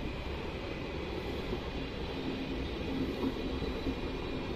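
Stadler FLIRT electric multiple unit (PKP Intercity ED160) pulling out of the station, a steady low rumble of the train running, with a faint hum between about two and four seconds in.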